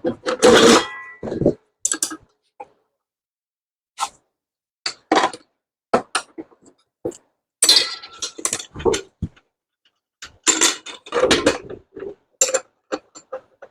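Irregular metallic clinks, knocks and clatter of hand tools and parts being handled on an electric concrete saw while its blade is worked loose.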